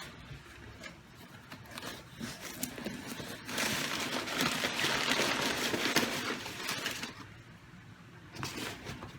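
Product packaging being opened and handled, with rustling and scraping that grow loudest for about three seconds in the middle.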